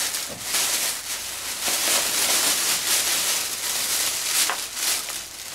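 Thin plastic shopping bag rustling and crinkling as hands rummage inside it and pull an item out.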